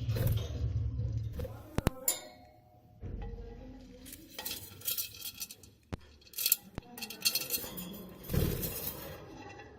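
Light clinks and knocks of small hard objects, one of them ringing briefly about two seconds in, followed by irregular rustling and handling noises.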